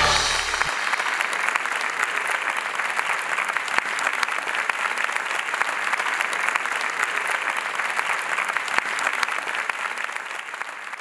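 Audience applauding, a dense and even clapping that begins as the song's music stops right at the start and fades out near the end.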